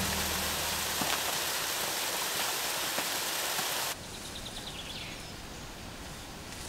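Waterfall running with a steady, full rushing noise. About four seconds in, it cuts off abruptly to a quieter forest ambience with a few faint high chirps.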